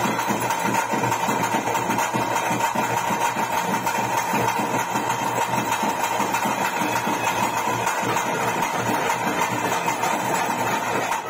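Live accompaniment of a Bhuta Kola ritual: fast, continuous drumming under a steady, high held note.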